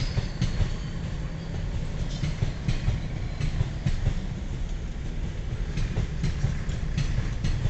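Narmada Express passenger coaches rolling past on the track: a steady low rumble, with irregular sharp clicks as the wheels cross rail joints.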